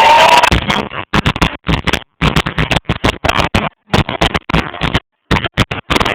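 Loud, distorted live concert music that breaks off about a second in into choppy, irregular bursts of rumbling noise with sudden silent gaps, like a phone microphone being rubbed or covered.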